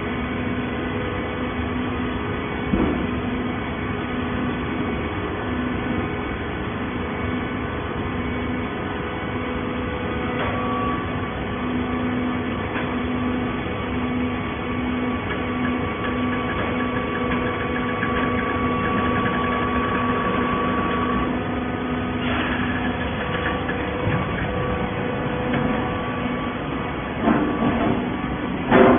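Automatic-binding PET bottle baler running: a steady machine drone with several steady tones, broken by a short knock about three seconds in and two sharp clanks near the end.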